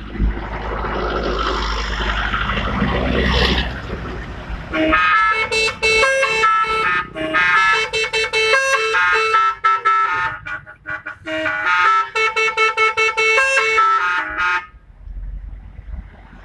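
Telolet musical horn on an NPM bus playing a tune of short pitched horn notes for about ten seconds, with a short break partway through. Before it, a few seconds of vehicle noise with a low rumble.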